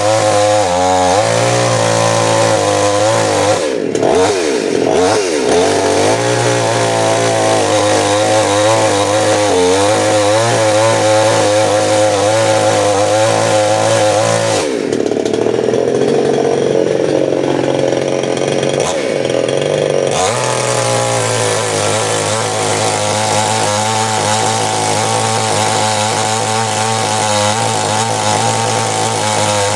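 Two-stroke chainsaw engine, sold as a Stihl 799, running hard and steady. Its pitch dips and recovers briefly around four to five seconds in. From about halfway it sags and wavers for some five seconds, then picks back up to its steady note.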